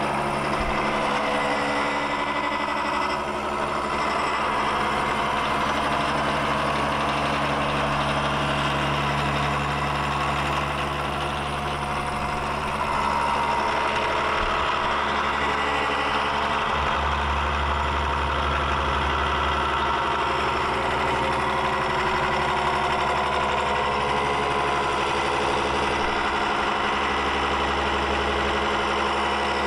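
Vertical milling machine running a brazed-carbide face mill through weld beads on a steel tube: a steady machine hum under a continuous grinding cutting noise. The cutter is running hotter than it should, which the machinist puts down to the face mill getting a little dull.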